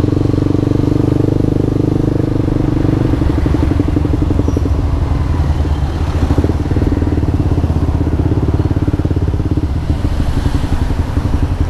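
Yamaha R15 v2's single-cylinder engine running steadily as the bike is ridden, heard through its aftermarket exhaust pipe; the exhaust pulses stand out more clearly in the middle stretch.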